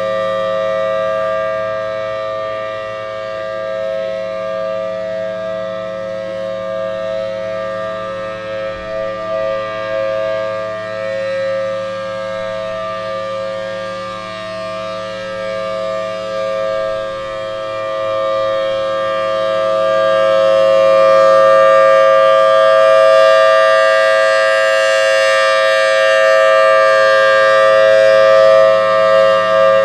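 Federal Signal Thunderbolt civil defense siren sounding a steady two-tone chord at full pitch, growing somewhat louder in the second half.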